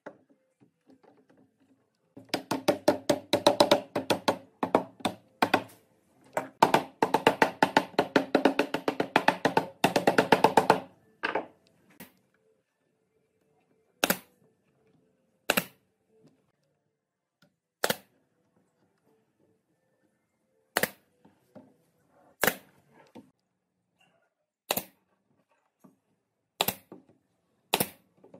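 Wooden lattice strips clattering and knocking rapidly for several seconds as the lattice is worked into its frame. After that, a pneumatic brad nailer fires about eight single shots, one every second or two.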